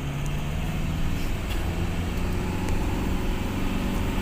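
Vehicle engine running steadily while driving, with tyre and road noise on a rough dirt track, heard from inside the cabin.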